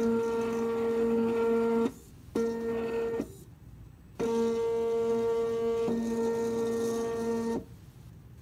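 Motors driving the under-board carriage of a homemade robotic chessboard: a steady mechanical whine in three runs with two short pauses, stopping shortly before the end. This is the carriage sliding a black pawn across the board from beneath.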